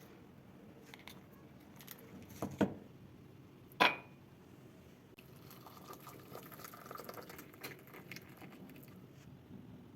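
Faint kitchen clinks of glassware and utensils. There are a couple of light taps, then one louder ringing clink about four seconds in.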